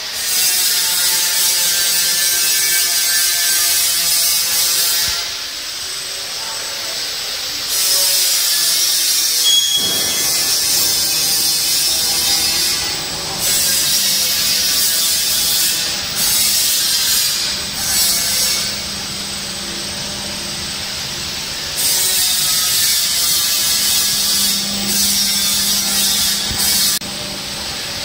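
Barth Tornado 60 drum coffee roaster running, with a loud hiss that cuts out and comes back several times and a low steady hum that sets in about halfway through.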